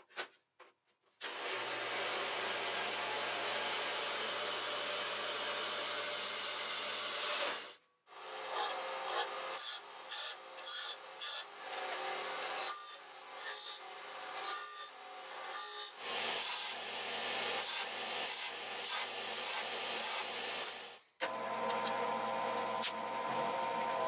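Metalworking on steel angle iron: a metal-cutting bandsaw runs steadily through a cut for several seconds, then comes a run of short, choppy grinding bursts as pieces are pressed against a bench grinder wheel, another steady stretch, and near the end a drill press drilling with a steady whine.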